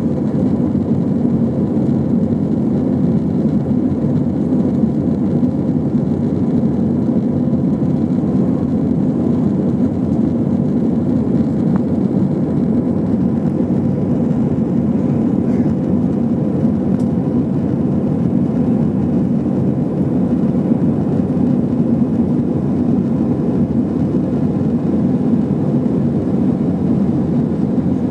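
Airbus A320 cabin noise in flight shortly after takeoff: the steady, even drone of engines and rushing air heard from a window seat, with a faint steady hum above it.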